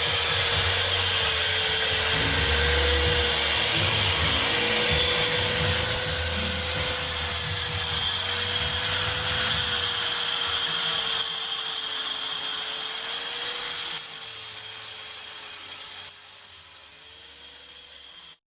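Electric grinder running while grinding concrete: a steady motor whine that wavers slightly in pitch over a rough grinding rasp. Over the last several seconds it grows quieter in steps, then cuts off abruptly near the end.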